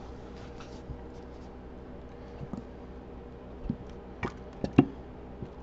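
Thick 75W-140 gear oil pouring from its plastic bottle into a plastic paint pan of clutch friction plates: a faint steady sound with a few short clicks, mostly in the second half.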